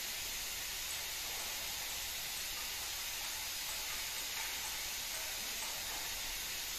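Steady, even hiss with no distinct knocks or tool sounds.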